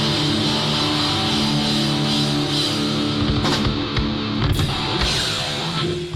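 Heavy metal played by a band: distorted electric guitars sustain a chord, and loud drum hits break in during the second half.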